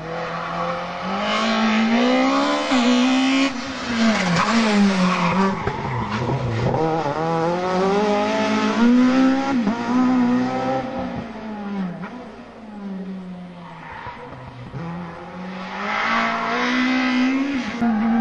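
Several rally cars passing in turn at full throttle. Each engine's pitch climbs hard, drops sharply at the gear changes and then climbs again as the car drives out of the bends.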